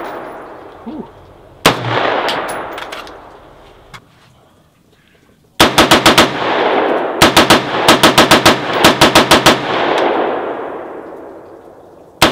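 AR-15 rifle with a Timney trigger being fired: a single shot about a second and a half in, then from about five and a half seconds in, fast strings of four to six shots in quick succession, one string after another. Each string's report rings on in a long echo that slowly fades.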